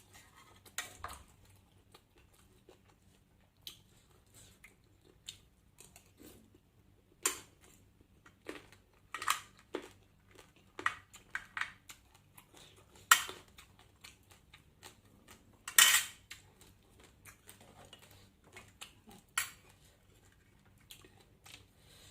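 Irregular clinks and clacks of eating utensils and dishes, with several louder sharp knocks spread through the stretch.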